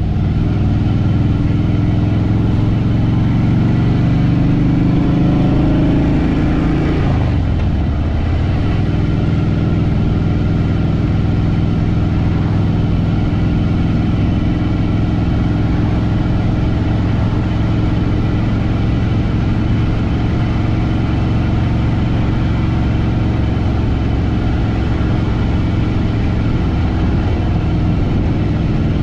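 Harley-Davidson Fat Boy Lo's air-cooled V-twin running under way, with a strong low note for the first several seconds. About seven seconds in the pitch drops, and the engine settles into a steady, lower note for the rest.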